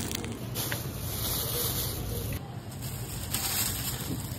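Thin plastic produce bags crinkling as bagged vegetables are handled and picked up, in two rustling stretches, over a steady low hum.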